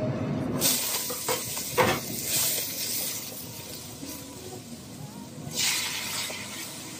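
Hot oil sizzling in a wok as ginger, garlic and chili go in, with a few sharp knocks of the spatula against the pan in the first couple of seconds. A fresh burst of sizzling comes near the end as chicken is added and stir-fried.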